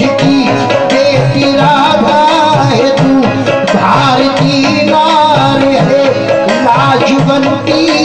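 Live qawwali: the lead singer holds a wavering, ornamented vocal line over a steady harmonium accompaniment and a running hand-drum rhythm.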